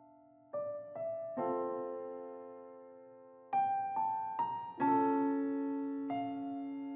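Slow, soft piano music: single notes and chords struck a few times and left to ring out and fade.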